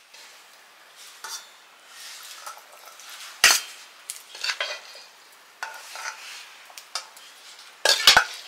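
Metal spoon stirring and scraping in metal cookware, clinking in irregular strokes, with a sharper knock about three and a half seconds in and two quick knocks near the end.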